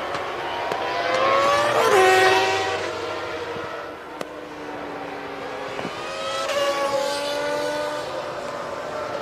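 Formula One cars at racing speed, two passes one after the other. The first and louder is about two seconds in and the second around seven seconds; each engine note drops sharply in pitch as the car goes by.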